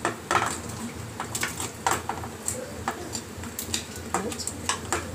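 Long metal spoon scraping and clinking against a steel pan as fried chicken pieces are pushed out of it into a pressure cooker, giving a string of irregular sharp clinks.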